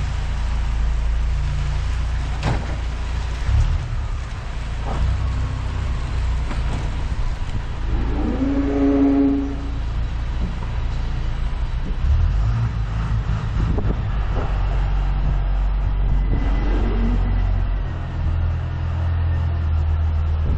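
Vehicle engine running while driving, a steady low rumble that rises and falls in level several times.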